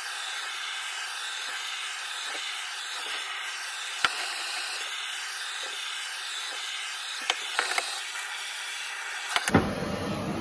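Hand-held propane torch burning with a steady hiss as its flame is played over a new wooden axe handle to scorch it. A sharp click comes about four seconds in, and a few more a little after seven seconds.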